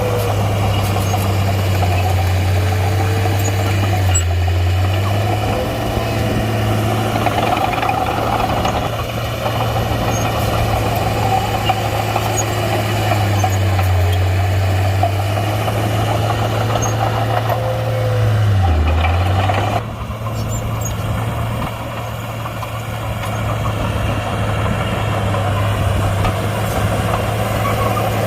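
Komatsu D31-P crawler bulldozer's diesel engine running steadily while working. Its pitch dips briefly and comes back up a little past halfway, and the sound gets quieter soon after.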